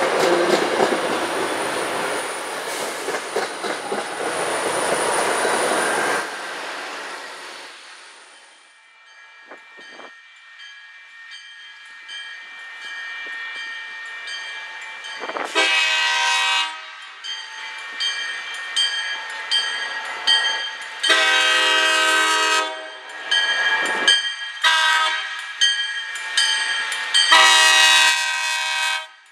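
MBTA commuter train of bi-level coaches rolling past with a loud rushing noise that fades away over the first several seconds. Then a grade-crossing bell rings steadily while an approaching MBTA diesel locomotive sounds its air horn in a series of blasts, long and short, for the crossing.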